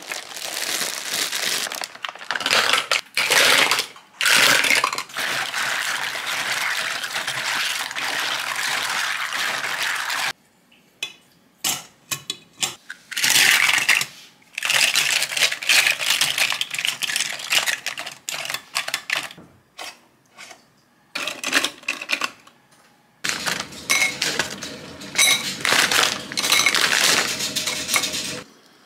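Scallop shells clattering and clinking against each other and the stainless steel steamer basket as they are handled, in a run of sharp separate clicks, with long stretches of dense rasping and rustling handling noise.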